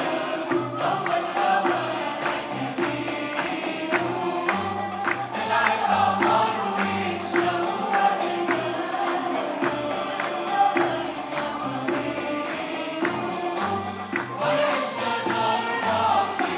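Mixed choir of women's and men's voices singing an Arabic song, accompanied by violins and cello, over a steady percussion beat.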